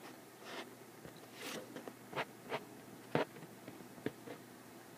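Faint, irregular taps and light scratches of a stylus writing on a tablet's glass screen.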